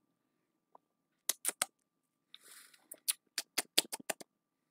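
Lips and tongue smacking while tasting a sip of a drink: a string of short wet clicks, about a dozen, with a short breath out through the nose in the middle.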